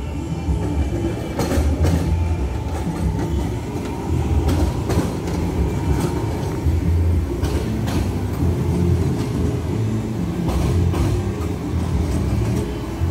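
Tram running along its track: a steady low rumble, with a double click about every three seconds as the wheels cross rail joints.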